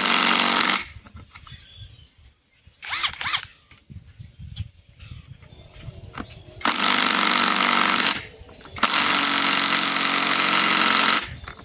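Cordless Bauer compact impact wrench hammering in four runs: a brief one at the start, a short one around three seconds in, then two longer runs in the second half.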